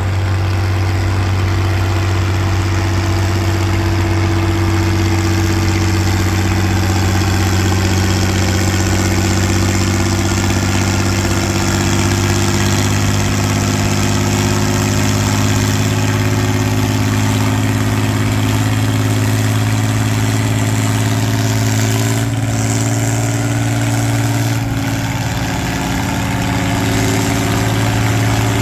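Red International Harvester tractor's engine working steadily under load as it drags a weight-transfer pulling sled. The engine note holds even, rising a little in pitch partway through.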